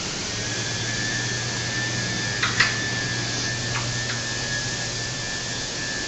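Frameless glass door panels being slid along their track: a steady running hum from the rollers, with a few sharp clicks as the panels knock together, the loudest about two and a half seconds in.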